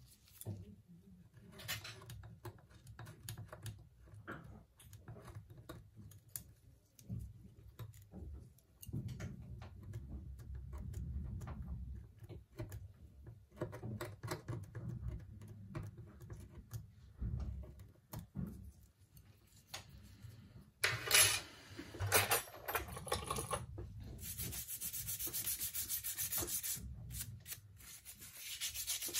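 Hand tools rubbing, scraping and clicking against a smartphone during a screen replacement, with scattered light handling knocks. A louder burst of scraping comes about two-thirds of the way through, followed by a few seconds of steady hiss.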